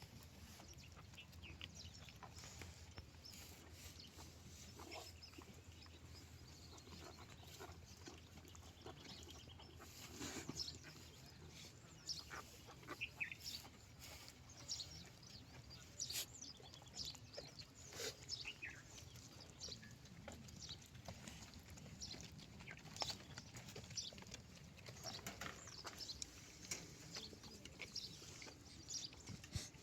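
Lambs bleating faintly now and then, among scattered short clicks and knocks over a low steady hum.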